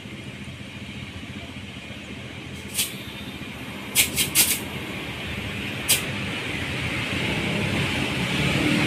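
Road traffic running past, with a car driving by close near the end, its sound growing louder. A few short sharp clicks come about three, four and six seconds in.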